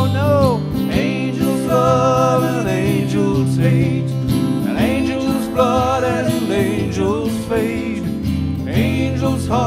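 Music: an acoustic campfire-style song with guitar accompaniment under a gliding melody line.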